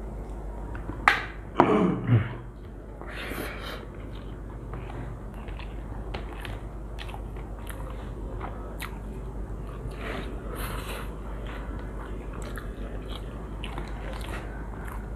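Close-up eating sounds: people chewing and smacking through mouthfuls of kacchi biryani, with scattered small mouth clicks throughout. A louder cluster of sounds comes about one to two seconds in, over a steady low electrical hum.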